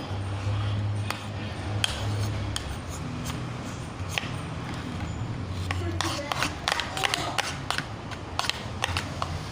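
Spoon stirring slime mixture in a bowl: irregular clicks and taps of the spoon against the bowl, coming thicker and faster from about six seconds in, over a steady low hum.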